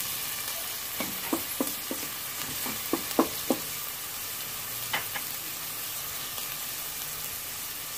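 Chopped garlic and onion sizzling in hot cooking oil in a stainless steel pot, with a steady hiss. A wooden spatula stirs and knocks against the pot several times in the first half.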